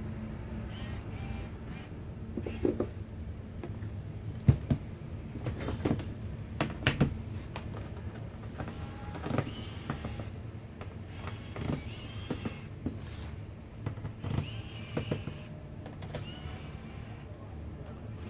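Scattered sharp clicks and taps over a steady low hum.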